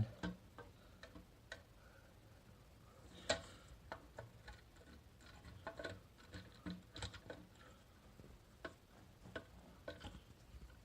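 Faint, irregular clicks and taps from handling an electronic safe's faceplate and body, with one louder knock about three seconds in, as the faceplate is worked at where it is caught.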